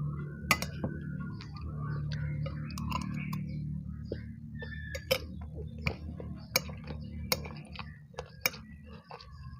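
Eating utensils clinking sharply and irregularly against a bowl, about a dozen times, while a bowl of spicy seblak soup is eaten, with soft eating noises between the clinks and a low steady hum underneath.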